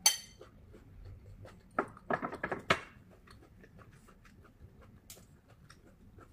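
Metal spoon clinking against ceramic dishes: one sharp clink at the start and a quick cluster of clinks about two seconds in. Then faint chewing with the mouth closed.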